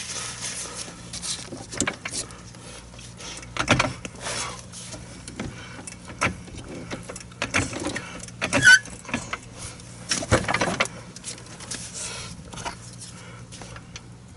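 Scattered metallic knocks, clinks and scrapes as a golf cart's steel leaf spring, with new bushings and collar fitted, is worked into its hanger bracket to line up the bolt holes; the loudest knock comes about nine seconds in.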